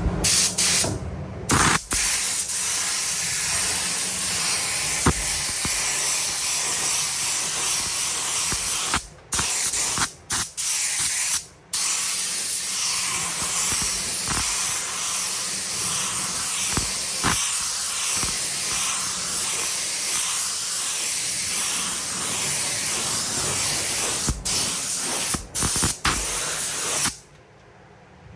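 Compressed-air paint spray gun hissing as paint is sprayed, in long passes broken by several brief releases of the trigger, stopping near the end.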